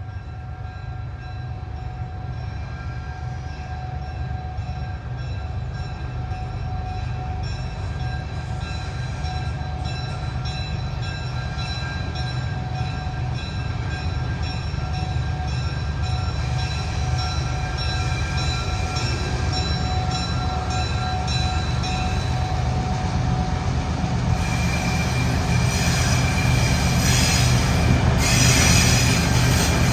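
EMD SW1 switcher's six-cylinder 567-C diesel engine rumbling and growing steadily louder as the locomotive approaches with its passenger coaches. A steady high tone sits over it until about two-thirds of the way through. Wheel and rail noise rises near the end as the train draws close.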